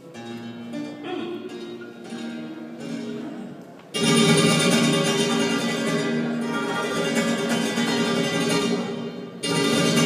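Flamenco guitar playing a fandango: soft single notes at first, then about four seconds in the playing turns suddenly much louder and fuller.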